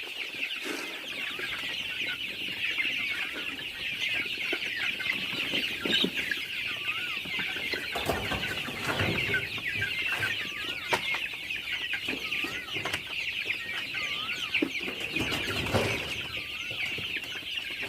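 Village chickens (ayam kampung) clucking and calling over a steady high chatter, with short wavering calls repeating from about a third of the way in and scattered knocks.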